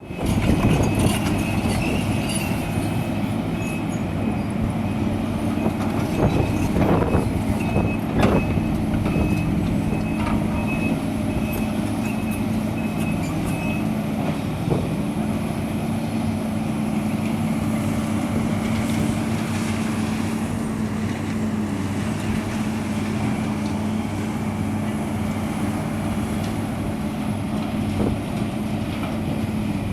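Heavy demolition machinery running with a steady engine note that shifts pitch about halfway through. A high repeated beeping sounds in short pulses during the first half, and two sharp knocks come about 7 and 8 seconds in.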